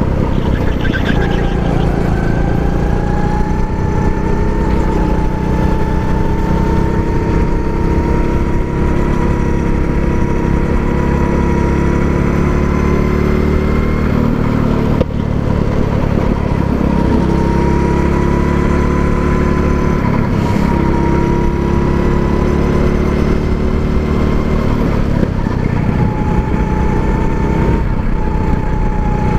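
A 270 cc go-kart engine running continuously under the driver, heard up close from the seat. Its pitch rises and falls gently with the throttle as the kart is driven through the corners.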